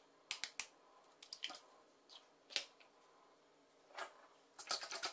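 Eggs cracked open over a stainless steel bowl: a handful of separate sharp taps and clicks as a spoon knocks on the shells. Near the end a fast, even clicking starts as the eggs are beaten with a utensil against the steel bowl.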